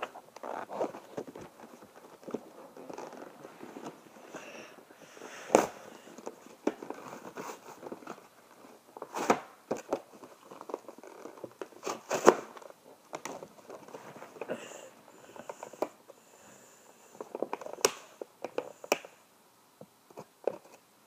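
Toy packaging being handled and opened by hand: a cardboard box and a plastic wrapper crinkling and rustling, with scattered sharp snaps and clicks, four of them standing out louder.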